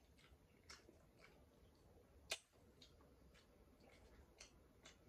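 Faint close-up eating sounds: soft clicks of chewing and of a fork working at food on a plate, a few scattered through, with one sharp, louder click about halfway through.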